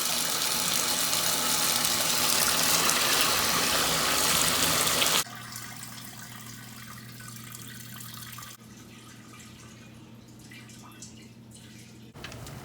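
Water rushing out of an open shower supply line as it is flushed to blow out debris, shut off suddenly about five seconds in.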